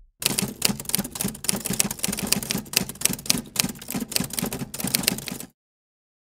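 Typing sound effect: rapid, irregular key clacks, several a second, that cut off suddenly about five and a half seconds in.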